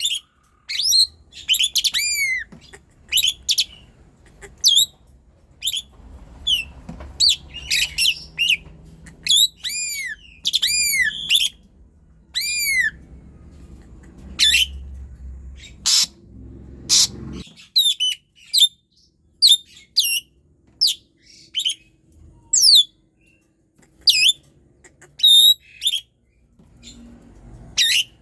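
Asian pied starling (jalak suren) singing persistently: a long run of loud, short, arching whistled notes and chattering calls with brief pauses, and two harsh rasping notes a little past halfway.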